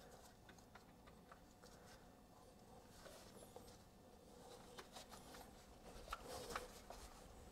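Near silence with faint, scattered light clicks and rustling, a little busier near the end: hands working a rubber hose onto a PCV valve by feel deep in the engine bay.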